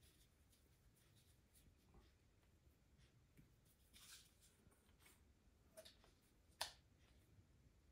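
Near silence with a few faint clicks and scrapes from a plastic oil syringe and tube being handled at a Pinion gearbox's oil port as old gearbox oil is drawn out. The loudest is a sharp click about two-thirds of the way through.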